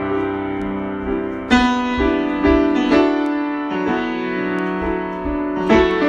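Solo piano improvisation: slow chords struck and left to ring, with a cluster of new chords around the middle and another near the end.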